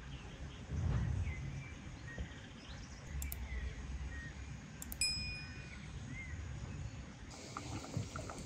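Small birds chirping in the background, with one short, bright chime about five seconds in, the bell sound of an animated subscribe-button pop-up. A low rumble of wind on the microphone about a second in.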